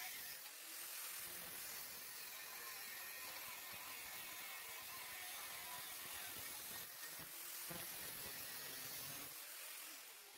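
Angle grinder with a thin cut-off disc cutting through a steel lawnmower blade: a steady, faint, high grinding hiss that dies away near the end.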